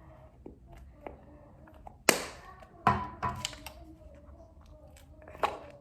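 Plastic slime container being pried open, with a few sharp clicks and knocks of the lid, the loudest about two seconds in.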